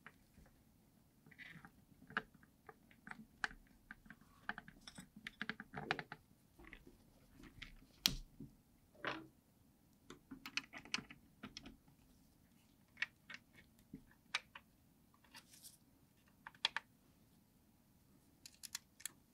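Handling sounds from reassembling a Sony TV-511E portable television: scattered small clicks, taps and brief scrapes of parts and a screwdriver against the chassis and circuit board, with the sharpest click about eight seconds in.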